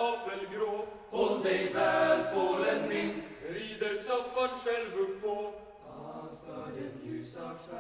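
Youth choir singing a traditional Swedish Lucia song in several voice parts.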